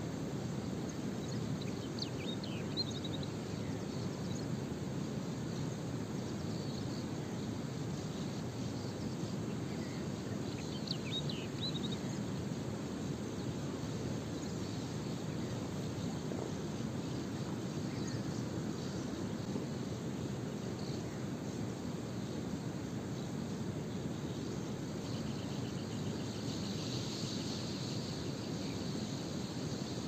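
Steady outdoor background noise with a low rumble, broken by a few short high chirps about two and eleven seconds in and a high, rapidly pulsing insect-like trill near the end.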